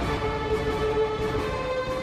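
Background music with long held notes over a dense, continuous lower layer.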